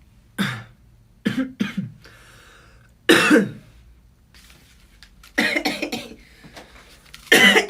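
A young man coughing several times in short, sudden bursts: single coughs and quick runs of two or three, with pauses between, the loudest about three seconds in and near the end.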